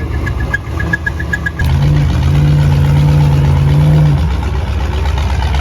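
Vehicle engine running in deep snow, with a rapid series of short high beeps during the first second and a half. After an abrupt change, the engine holds a steady, higher pitched note from about two to four seconds in.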